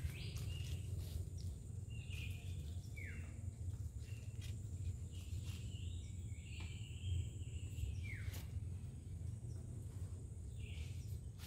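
Swamp forest ambience: a bird gives a falling whistled call a few times, over a steady high insect drone that stops about eight seconds in. A low rumble runs underneath.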